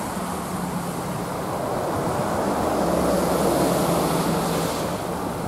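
Distant diesel passenger train crossing the Tay Bridge: a steady low drone that grows a little louder and drops slightly in pitch about halfway, with wind noise on the microphone.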